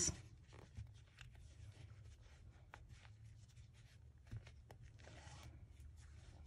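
Faint rustling and light ticks of hand-sewing: a needle and thread drawn through fleece in tacking stitches.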